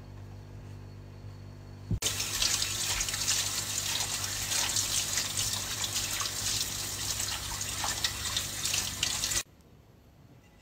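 Kitchen tap running full onto a plate in a sink: a steady rush of water that starts about two seconds in and cuts off suddenly near the end, with a low hum before it.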